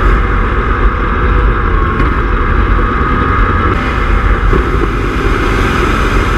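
Turbocharged Ford 351 Windsor V8 running steadily, heard up close at the turbo's open compressor inlet with a constant rush of intake air.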